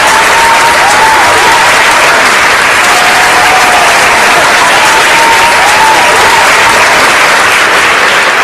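Crowd applause and cheering, steady and loud, with long drawn-out cheers carried over the clapping.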